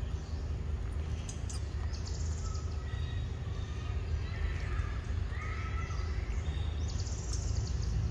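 Young macaque biting and chewing a ripe mango close to the microphone, with a few sharp wet clicks. Birds chirp faintly in the background over a steady low rumble.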